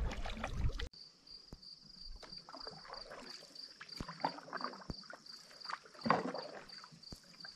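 Paddling a canoe: soft water swishes of paddle strokes and a few sharp light knocks against the hull. Behind them an insect chirps in a steady pulsing rhythm. A louder rushing noise fills the first second and cuts off abruptly.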